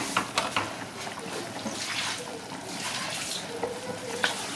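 Spiced broth boiling in a large aluminium pot around whole chickens, a steady liquid bubbling with faint ticks.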